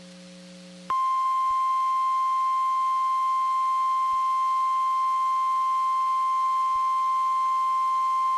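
NOAA Weather Radio 1050 Hz warning alarm tone: one long steady beep that starts suddenly about a second in, over a faint low hum. It signals that a warning broadcast, here a tornado warning, follows.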